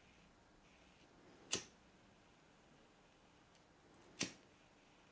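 Pocket lighter struck twice: two sharp clicks about two and a half seconds apart, over a faint room hush.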